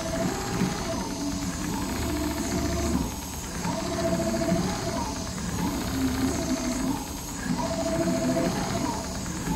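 Richpeace large-format CNC automatic sewing machine running, its head stitching heavy upholstery material as it traces the pattern: a steady mechanical hiss with a motor whine that comes and goes in short stretches.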